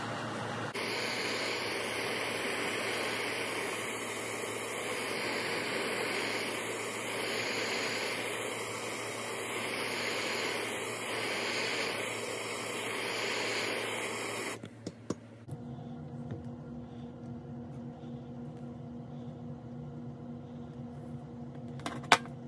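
MAPP gas hand torch burning with a steady hiss that swells gently every couple of seconds as the flame is played over a braided fine silver wire to heat it. The hiss stops suddenly about two-thirds of the way through, and then there are a few light clicks and one sharp metallic click near the end.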